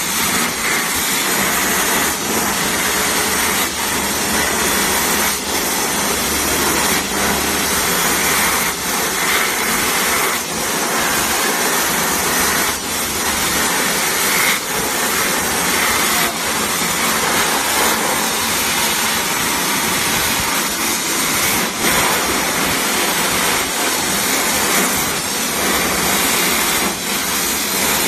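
Abrasive blasting nozzle firing white corundum (white fused alumina) grit at a steel frame: a loud, steady hiss of the blast jet, with brief small dips now and then.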